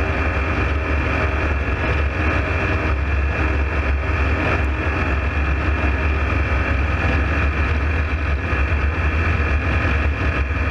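Ultralight aircraft in flight: a loud, steady drone of engine and propeller with rushing air, heard from inside the open-sided cockpit.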